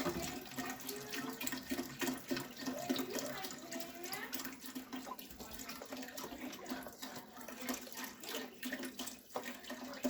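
Chicken broth being poured into a pan of cooked onions: a steady stream of liquid splashing and gurgling into liquid.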